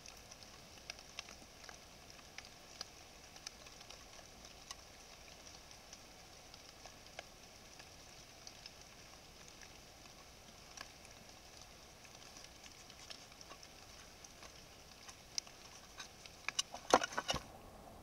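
Faint crackles and ticks of a pine marten moving and foraging in dry leaf litter, over the steady high hiss of a trail camera's microphone. Near the end comes a short burst of loud, sharp knocks and scrapes.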